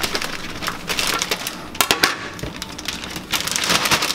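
Plastic zipper bag crinkling as it is handled, with pieces of chopped zucchini and bell pepper tumbling into it off a plate, giving irregular sharp clicks and rustles.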